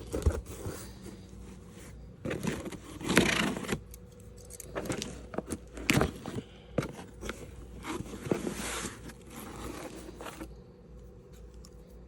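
Packaging being handled in an open shipping box: irregular rustling and scraping of paper and cardboard with scattered light knocks and clicks.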